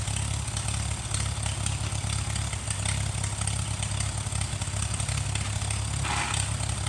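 Farmall M tractor's four-cylinder engine running steadily at a low, even speed.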